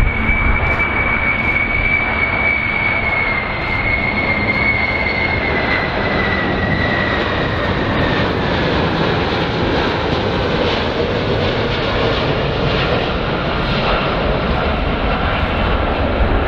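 Boeing 747 (VC-25A) on low landing approach: the steady rush of its four turbofan engines, with a high whine that slides slowly lower over the first eight seconds or so as the jet passes.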